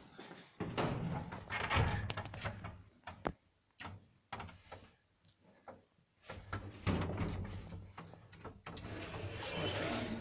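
Clicks, knocks and rattling from an old apartment-block elevator's metal scissor gate and doors being worked, with a quieter stretch in the middle.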